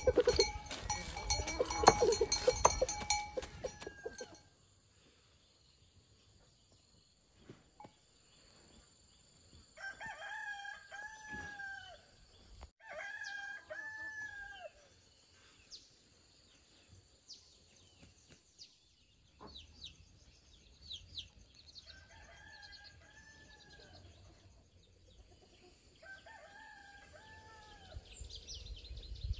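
A rooster crowing four times, each crow about two seconds long, in two pairs a few seconds apart, over faint small-bird chirps and a steady high whine. The first few seconds hold a louder, mixed burst of sound.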